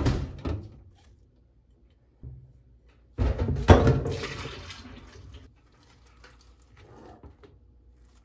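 Metal steamer basket set down on a stainless steel sink counter with a short clatter. About three seconds in, a bowlful of whey from strained yogurt is poured out into the steel sink, splashing and fading over about two seconds. Soft handling of the cloth bundle follows.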